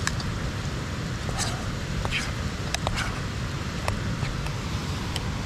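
Metal spoon clinking and scraping in a metal camp pot as simmering chili is stirred, heard as scattered sharp clicks over a steady low rumble.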